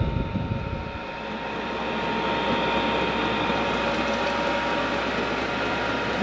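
Chinese diesel air heater running flat out at its top setting, heat 6, with a steady whirring drone and a thin constant whine. A few low bumps come in the first second, then the noise builds slightly and holds steady as it picks up pace.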